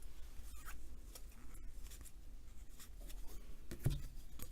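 Trading cards being slid and flipped over by hand, with light rubbing and flicking strokes of card on card and a soft thump about four seconds in.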